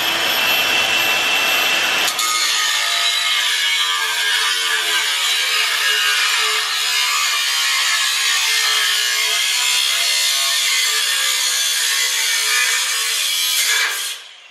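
Reciprocating saw with a metal-cutting blade cutting through a car's steel exhaust pipe to remove the resonator. It runs steadily and stops abruptly about half a second before the end.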